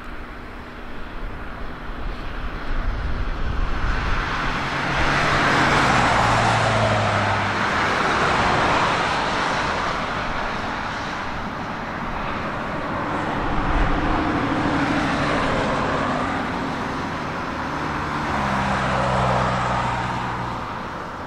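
Jet aircraft passing close by: a loud rushing engine noise that builds over the first few seconds and stays up, with a slowly sweeping, phasing quality and a second swell near the end.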